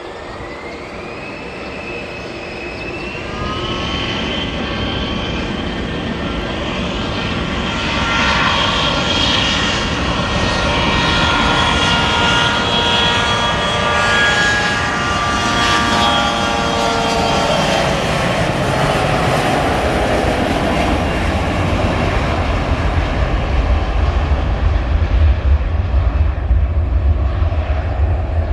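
Bombardier CRJ1000's two rear-mounted General Electric CF34 turbofans spooling up to takeoff power. A whine rises in pitch over the first few seconds and settles into several steady high tones over a growing roar. After about two-thirds of the way through the whine fades and a deep rumble of jet exhaust grows loudest near the end.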